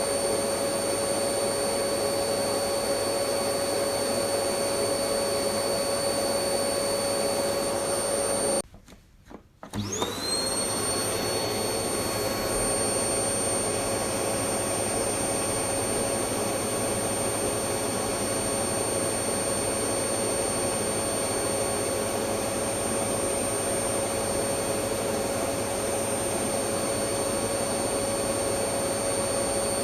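Electric vacuum cleaner running with a steady drone and a high whine. About a third of the way in it cuts out abruptly for around a second, then the motor spins back up, its whine rising to the same steady pitch.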